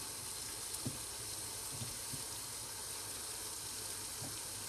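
Steady sizzle of salmon and courgette frying in oil and butter in a covered pan, with a few faint soft knocks.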